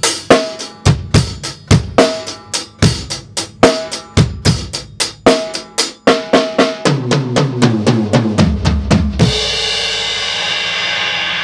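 Drum kit playing a ballad groove of bass drum and snare, then a quick eighth-note triplet fill whose strokes fall in pitch as it runs down the toms to the floor tom. It ends about nine seconds in on a cymbal crash that rings out and slowly fades.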